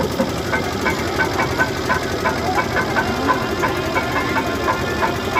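Engine, most likely a generator powering the float's lights, running steadily, with a regular beat of about three strikes a second over it and faint crowd voices.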